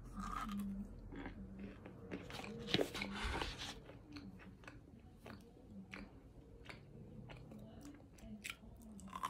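Biting into and chewing a chunk of cornstarch: crisp crunches, densest about two to three and a half seconds in, then softer scattered crunches as the chewing goes on.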